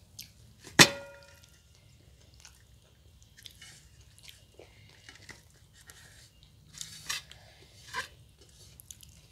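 Eating by hand from stainless steel plates: quiet chewing and handling sounds, with one sharp metallic clink on a steel plate about a second in that rings briefly, and a few lighter clinks near the end.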